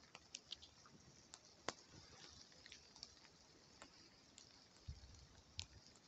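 Faint, irregular crackling and popping of a smoky, smouldering campfire, with one sharper pop about two seconds in and a brief low bump near the end.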